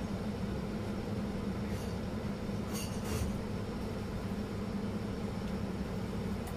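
Steady low machine hum, with faint brief light sounds about two and three seconds in as sauce is squeezed onto a plate.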